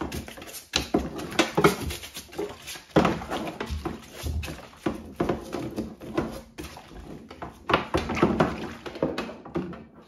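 A small soft brush scrubbing a Bosch dishwasher's plastic filter in a wet sink, with irregular knocks and clatter as the plastic parts are handled.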